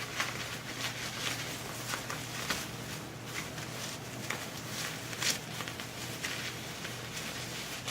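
Packing paper crinkling and rustling as it is handled and pulled out of a box, with irregular crackles and sharper snaps.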